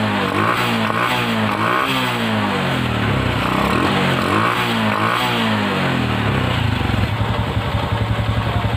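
Honda Karisma 125 single-cylinder four-stroke motorcycle engine revved in quick repeated throttle blips, about two a second, then settling to a steady idle near the end. Its carburettor has a freshly fitted repair kit and a newly set air screw, and the engine picks up cleanly on each blip.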